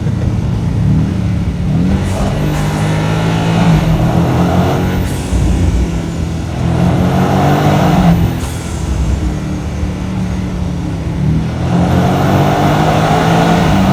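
BMW M5 (G90) twin-turbo 4.4-litre V8 pulling hard three times between corners. Each time the revs climb with a high whine rising alongside, then fall away as the throttle is lifted. BMW's M Sound engine-sound enhancement is switched on.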